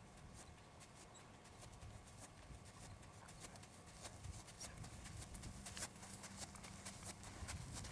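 Faint hoofbeats of a young Holsteiner/Thoroughbred mare walking on arena sand under a rider: soft, irregular ticks that grow a little louder toward the end as she comes closer.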